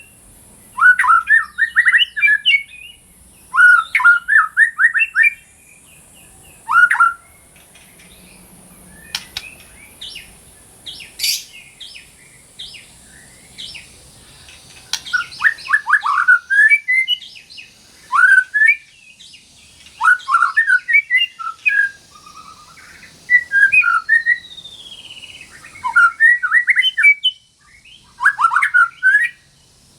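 White-rumped shama (murai batu) singing loud, short phrases of rapid sweeping whistled notes, about one phrase every two seconds. The song drops to thinner, quieter high notes for several seconds in the middle.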